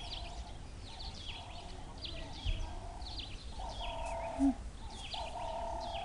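Birds calling outdoors: sharp notes sweep downward, repeated about once a second, over a lower buzzy call that repeats. There is a brief low thud about a third of the way in, and a short low sound about three-quarters in.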